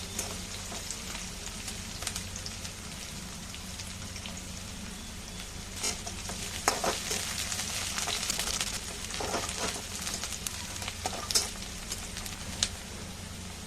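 Food frying in oil in a pan, a steady sizzle, with a spatula stirring and now and then scraping or clicking against the pan.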